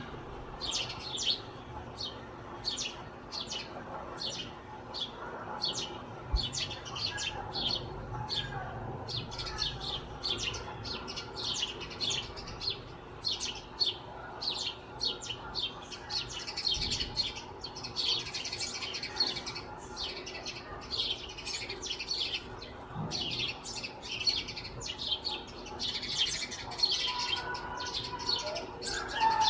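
Small birds chirping: a steady stream of short, high chirps, about two a second, growing denser and overlapping around the middle and again near the end.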